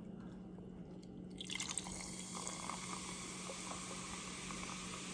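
Lime-flavoured sparkling water poured from a can into a glass, starting about a second and a half in, then a steady, fairly quiet fizzing hiss as the carbonated water splashes and bubbles.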